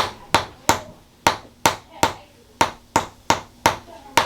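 Rhythmic percussive tapping in a chiropractic treatment: a steady series of sharp taps, about three a second, with a brief pause about two seconds in.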